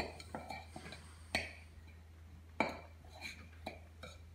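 A table knife clinking and scraping against a stoneware mixing bowl as it works an egg into crumbly dough, with about six sharp, irregular clinks.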